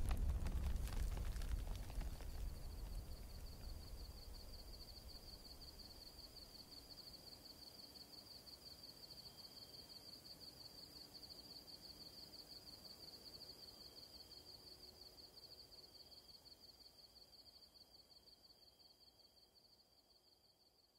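High, rapidly pulsing insect trilling holds steady, with a fainter trill a little lower in pitch. A low rumbling noise fades away over the first few seconds, and the whole sound fades out near the end.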